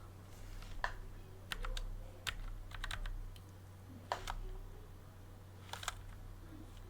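Computer keyboard typing: irregular, scattered keystrokes, as a command is typed in, over a faint low steady hum.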